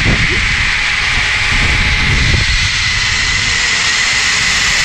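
Zip-line trolley running along its steel cable: a steady whine from the pulleys over the rush of wind on the microphone.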